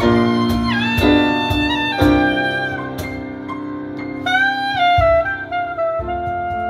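Soprano saxophone playing a jazz melody, with a few notes bent in pitch, over grand piano chords.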